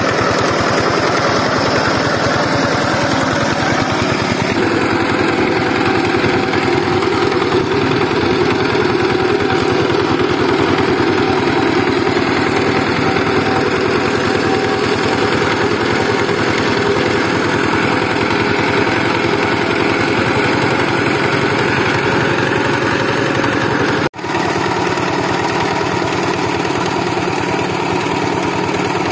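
Single-cylinder diesel engine of a two-wheel walking tractor running steadily. The sound drops out for a split second about three-quarters of the way through, then the engine carries on.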